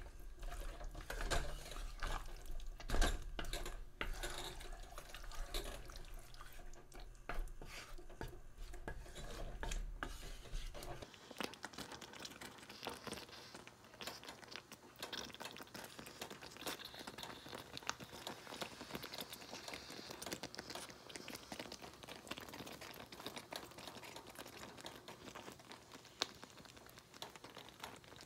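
A utensil stirring a thick, chunky stew in a pan, with scraping and clicks against the pan. About eleven seconds in it gives way to a quieter, faint crackling with fine ticks.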